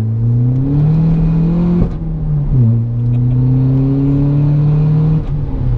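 Seat Ibiza 6L's tuned 1.9 TDI PD four-cylinder turbodiesel, heard from inside the cabin, pulling hard under acceleration. The engine note climbs, drops at a gear change about two seconds in, climbs again through the next gear and drops once more near the end.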